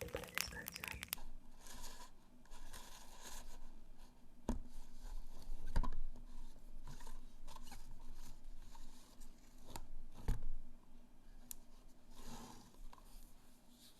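Slime being handled close to the microphone: soft sticky crackling stretches, with a few sharp pops spread through it.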